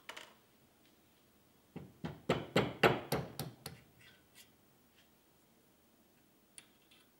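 Hand-turned taper reamer cutting in a pin hole through a steel lever, making a quick run of about eight sharp metallic clicks and scrapes over two seconds, then a few faint ticks and one small click near the end.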